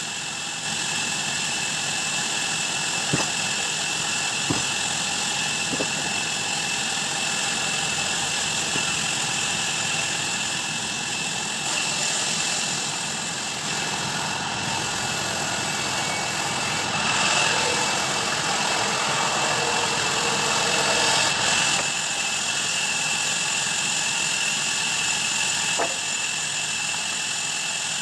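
Sawmill bandsaw machinery running steadily with a high, even whine. There are two sharp knocks a few seconds in and another near the end, and the sound grows louder and rougher for several seconds past the middle.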